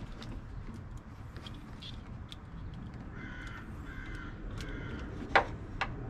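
Light clicks and rattles of the smoke tester's wire leads and alligator clips being handled and clipped onto fuse posts, with a sharp click about five and a half seconds in and a smaller one just after. A bird caws three times in the background around the middle.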